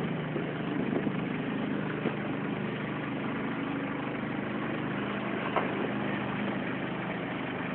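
Boat engine idling steadily, with one brief short knock about two thirds of the way through.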